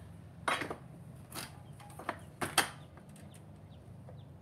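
A handful of short knocks and clicks from handling a corded circular saw as it is picked up and set on the lumber, over a low steady hum; the loudest knock comes a little past halfway.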